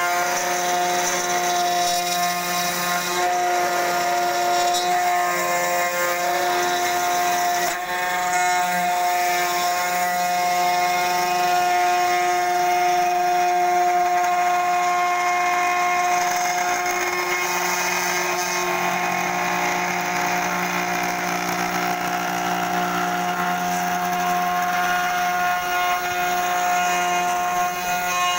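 CNC router's 500 W spindle with a 3 mm end mill running and cutting into a coconut shell: a steady multi-tone whine over a grinding hiss, with some tones shifting pitch now and then as the cut moves.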